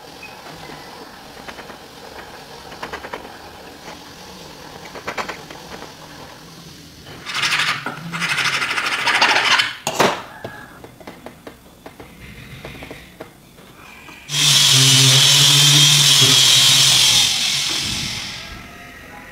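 Jewellery bench work on a silver ring. Around the middle comes a loud noisy burst of about two and a half seconds, ending in a sharp click. Later a small power tool runs loudly and steadily with a low hum for about four seconds, then fades away.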